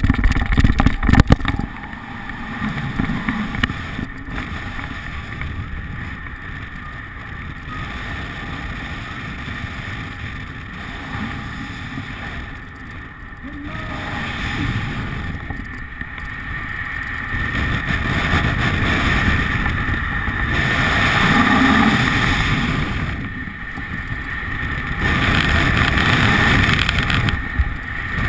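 Rushing wind on the camera's microphone during a fast speed-flying descent, a rumbling roar that swells and fades as the airspeed changes. It buffets hardest in the first second or so, at take-off from the slope.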